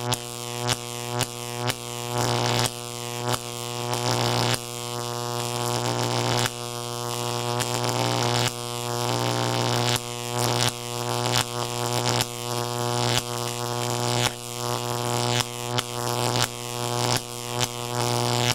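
Electric-charge weapon sound effect: a steady electric buzzing hum broken by sharp crackling zaps, mostly about two a second, with a few longer stretches of plain hum in between.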